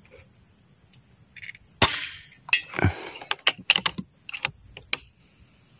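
Full-CNC Predator PCP air rifle firing once, a sharp crack about two seconds in, followed by a string of sharp clicks and knocks.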